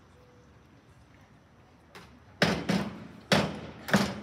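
Diving springboard knocking and rattling under the diver's steps as she walks her approach along the board: four sharp knocks in the second half, about half a second apart.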